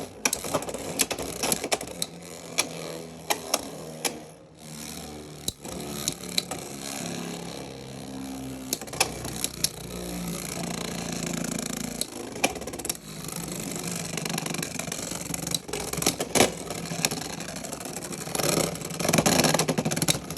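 Beyblade X spinning tops whirring in a plastic stadium, with frequent sharp clicks and clacks as they strike each other and the stadium wall.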